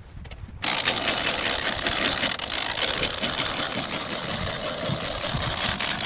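Motor-driven boat-trailer winch winding in its strap to haul an aluminium boat up onto the trailer: a steady mechanical whirr with fast clicking that starts suddenly about half a second in.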